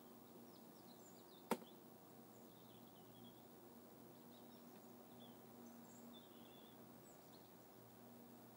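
Near silence: faint steady room hum, with one sharp click about one and a half seconds in.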